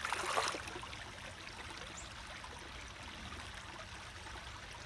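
Small creek trickling and running steadily, with a brief louder rush of noise right at the start.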